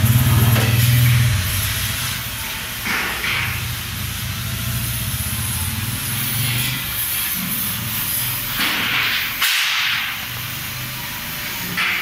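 A low, pulsing motor rumble, loudest in the first second or so and then lower, with short hissing bursts every few seconds.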